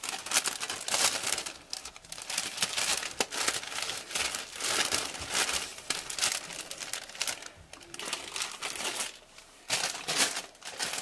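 Clear cellophane bag and crinkle-cut paper shred filler being handled and spread out by hand, crinkling and rustling in irregular bursts, with a short pause near the end.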